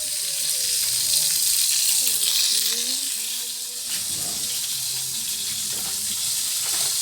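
Chicken hamburger patties sizzling steadily as they fry.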